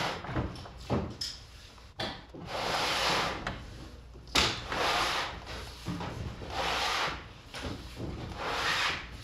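Worn rubber garage door bottom seal being pulled out of its aluminum C-channel track: four long rubbing scrapes of about a second each as it slides along the channel, with a few sharp clicks between them.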